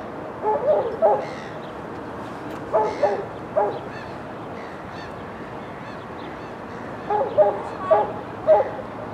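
A dog barking in short, sharp barks, in three bouts of three or four barks each.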